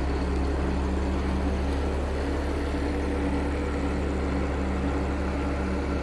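Caterpillar C7 diesel engine of a Kenworth T300 truck running at a steady speed, a low, even drone.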